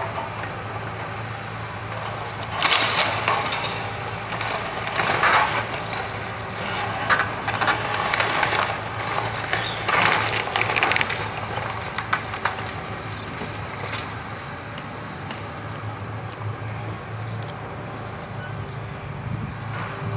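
A Hitachi Zaxis excavator's diesel engine runs steadily while its demolition grab tears into a bungalow's walls. Wood and debris break with repeated loud crashes and cracks through the first half, followed by quieter knocks and creaks.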